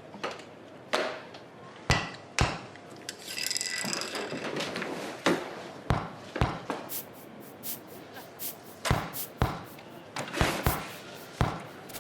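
A string of irregular sharp knocks and taps, some in quick pairs, with a brief ringing, chime-like sound about three to four seconds in.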